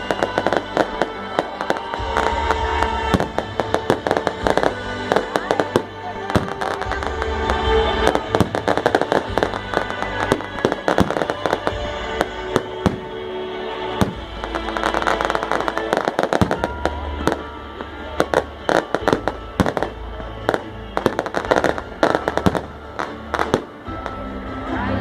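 A fast, continuous string of sharp pops and crackles, with music playing underneath.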